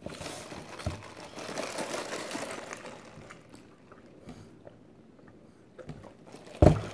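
Close-up mouth sounds of crunching and chewing a pastry, densest for the first three seconds. Near the end, a single loud thump as a plastic iced-coffee cup is set down on the table.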